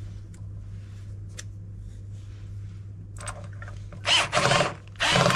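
Cordless drill-driver running in short bursts, driving or backing out a screw on a washing machine tub; the bursts come about three seconds in and are loudest over the last second and a half.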